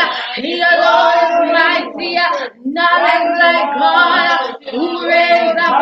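A group of voices, mostly female, singing a praise chorus together in phrases, with two short breaks between phrases.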